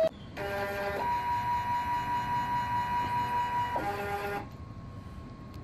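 Stepper motors of a homemade wooden mini CNC plotter whining as they drive the axes. A steady high whine holds for about three seconds, then stops about four seconds in, leaving a fainter hum.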